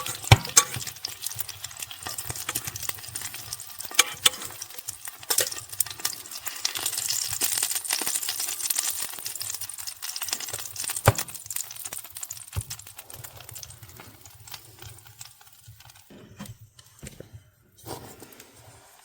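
Sausages sizzling and crackling as they fry, with a few sharp clicks and knocks. The sizzle dies away about three-quarters of the way through, leaving only scattered faint clicks.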